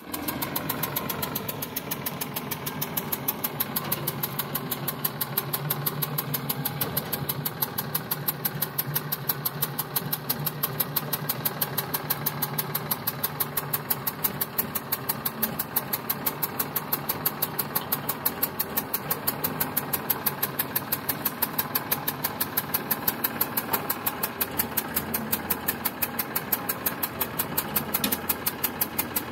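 Sonalika DI 745 tractor's diesel engine idling steadily, with an even beat of pulses several times a second.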